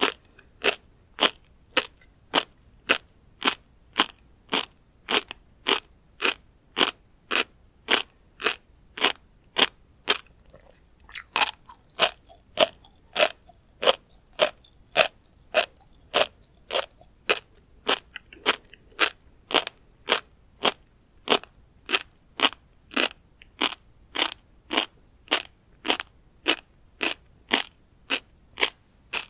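Close-miked chewing of a mouthful of tobiko (flying fish roe), the eggs crunching and popping between the teeth in a steady rhythm of about two bites a second, with a brief pause about ten seconds in.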